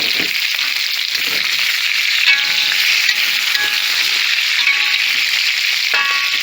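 Sausages sizzling steadily as they fry in hot oil in a pan.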